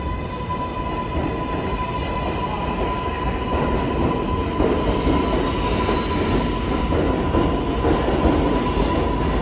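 R142A subway train pulling out of the platform beside the listener. Its wheels rumble on the rails, getting steadily louder, under a steady high whine that fades out after about six seconds.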